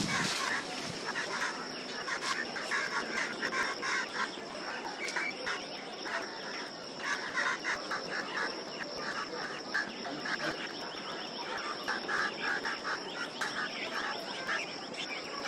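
Crows squawking and squirrels chirruping, many short harsh calls in quick runs, over a steady high-pitched hum.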